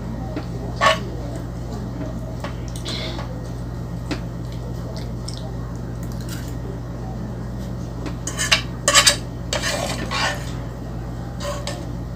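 Metal fork clinking and scraping against a nonstick frying pan while pasta is eaten from it: a single clink about a second in, a quick run of clinks around eight to nine seconds in, then a short scrape.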